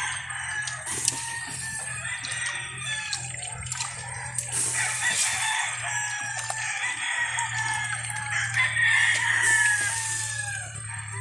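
Roosters crowing repeatedly, long calls that fall away in pitch at the end, the loudest in the second half, over a steady low hum.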